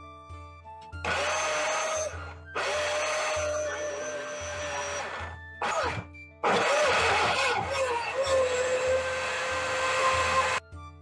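A small motor runs in three bursts, the last and longest about four seconds, each with a steady whine, over background music.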